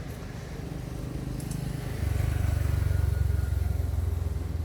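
A motor vehicle's engine rumbling low, growing louder about two seconds in and easing off near the end.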